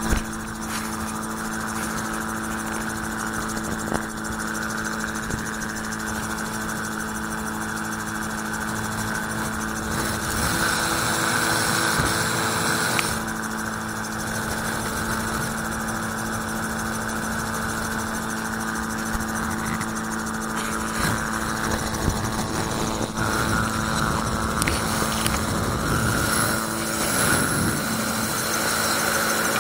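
Magni M16 autogyro's engine and pusher propeller running steadily in cruising flight, a constant drone heard from the open cockpit.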